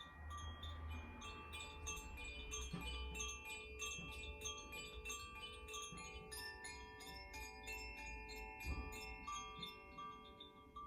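Koshi chimes played softly: a continuous stream of quick tinkling strikes, several a second, with bright ringing tones that overlap and hang on.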